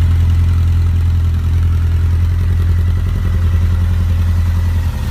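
Honda CB1100RS inline-four running steadily through a solid-titanium slip-on exhaust silencer. Its pitch drops slightly near the end.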